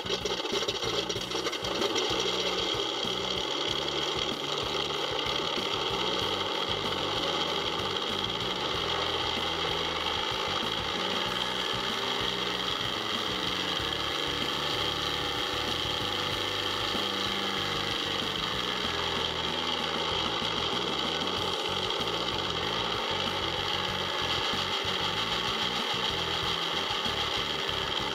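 Simulated P-47 Thunderbolt radial engine sound played from an electronic engine-sound module in an RC model plane, idling with an uneven, knocking beat. It rises in pitch and falls back about halfway through, as the throttle is opened and closed.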